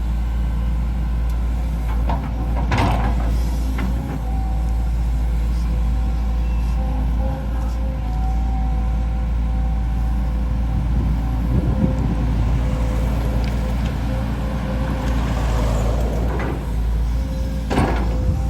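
Volvo EC210D excavator's diesel engine and hydraulics working under load, a heavy steady rumble with a faint whine that comes and goes. There are two sharp knocks, one about three seconds in and one near the end, and a hiss about fifteen seconds in.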